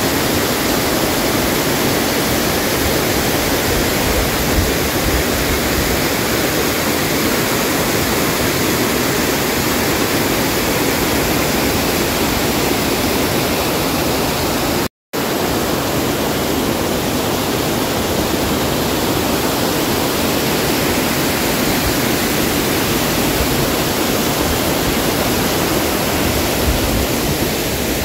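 Steady rushing of a mountain waterfall, an even wash of falling water that briefly cuts out about halfway through.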